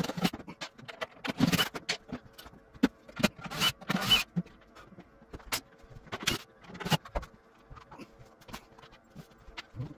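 Scattered knocks, bumps and scrapes of hands working at a wooden upper kitchen cabinet, in irregular bursts that thin out toward the end, over a faint steady hum.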